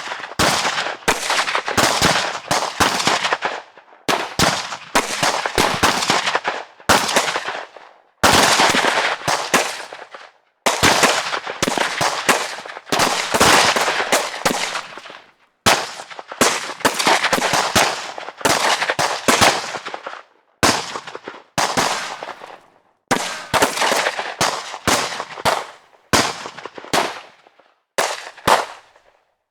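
Gunfire in a string of rapid bursts, each one to three seconds long with short gaps between, the shots echoing as each burst dies away.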